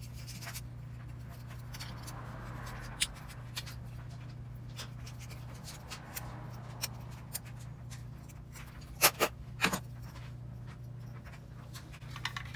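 A metal tool scratching and scraping against a white plastic part, in two short stretches, with small handling clicks throughout and a few sharp knocks about nine seconds in. A steady low hum runs underneath.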